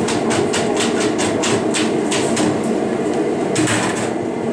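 Steady roar of a glassworks furnace, with a run of quick, even taps or clicks, about five a second, for the first half and a few more near the end.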